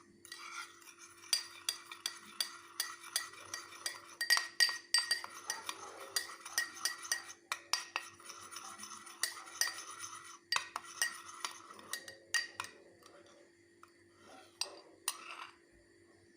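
A spoon stirring in a cup, clinking repeatedly against its sides at about two or three clinks a second. The clinking thins out about twelve seconds in, with a last couple of clinks near the end.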